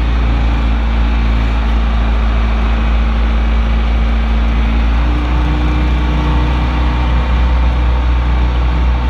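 Diesel engine of a John Deere 410 backhoe running steadily, its note shifting about five seconds in as the engine load or speed changes.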